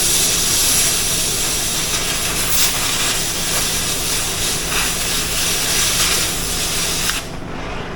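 Oxy-fuel cutting torch running with a steady hiss as it cuts through a car rim, with a faint steady hum underneath. The hiss cuts off sharply near the end.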